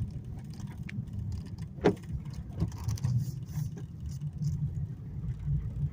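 Steady low rumble of a car driving, heard from inside the cabin, with a few faint clicks and a brief squeak about two seconds in.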